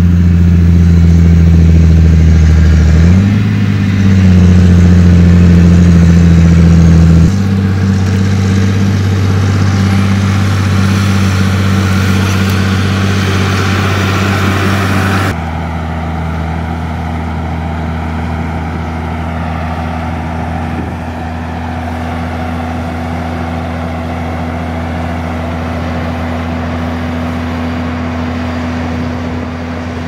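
John Deere tractor's diesel engine pulling a PERARD Interbenne 38 grain cart, running steadily with a brief rise in revs about three seconds in. About halfway through it changes to a quieter, even engine hum as the cart's auger unloads grain into a truck.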